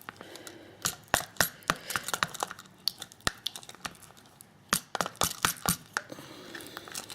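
A teaspoon clicking and knocking against the sides of a plastic container while stirring a thick, creamy oil mixture, in irregular clusters of sharp taps.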